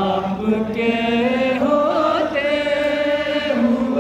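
A man's voice reciting a naat unaccompanied through a microphone in a large hall, singing long held notes with short slides in pitch between them.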